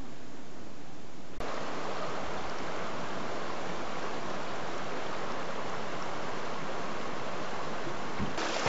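A small mountain stream splashing over a rocky step into a shallow pool: a steady rush of falling water. It becomes fuller and louder about a second and a half in.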